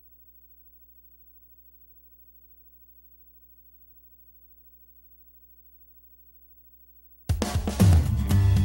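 Near silence with a faint steady low hum, then the show's theme music starts suddenly about seven seconds in.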